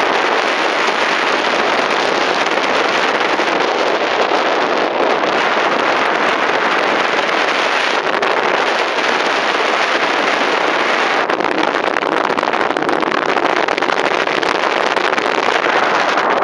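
Steady rush of wind over the camera microphone during paraglider flight.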